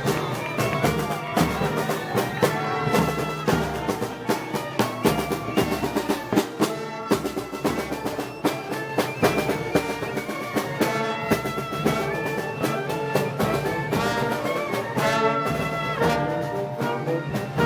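Festival brass band music of the kind played at Moros y Cristianos: trumpets and trombones playing a melody over drums with a regular beat.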